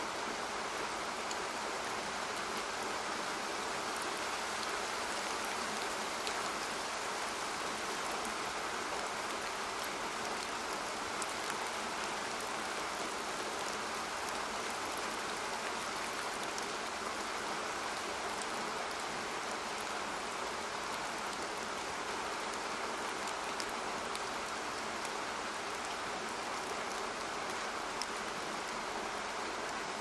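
Steady water noise with faint scattered ticks.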